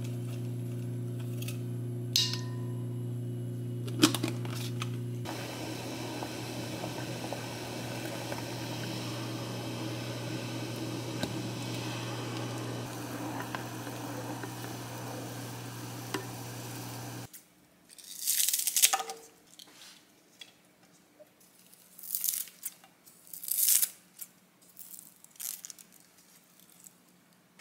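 A steady electric hum under the crackling bubble of a simmering pot of broth, which cuts off suddenly a little after halfway. Then kitchen scissors snip through stalks of leafy greens in several crisp cuts.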